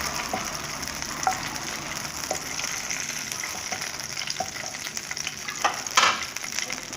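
Oil sizzling in a frying pan as vegetables fry, with the spatula clicking and scraping against the pan now and then. There is a louder clatter about six seconds in.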